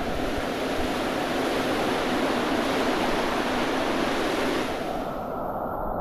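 Rushing whitewater of a Merced River rapid running high, a steady noisy rush of water. The hissing upper part drops away about five seconds in, leaving a lower rush.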